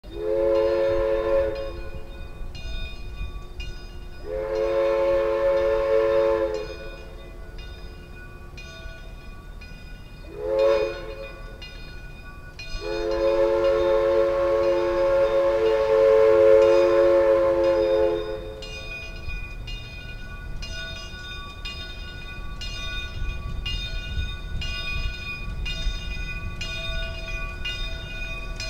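Southern Railway 401 steam locomotive's whistle blowing the grade-crossing signal, long, long, short, long, with the last blast held for several seconds and several notes sounding together. A bell rings steadily behind it, and a low rumble of the approaching locomotive grows near the end.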